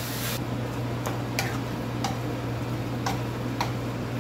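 Wooden spatula clicking and scraping against a frying pan as chunks of beef are stirred, about five irregular clicks, over a steady low hum. A hiss stops abruptly just after the start.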